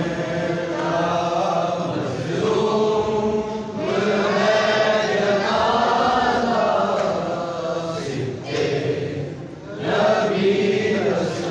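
A crowd of mourners chanting together in long, held phrases, with short breaks between them.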